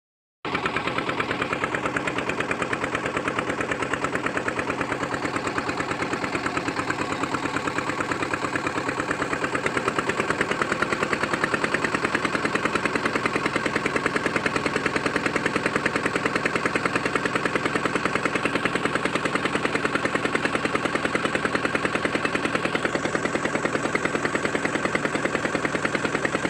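Small inboard engine of a plastic-drum boat running under way with a rapid, even chug. The sound cuts in abruptly about half a second in.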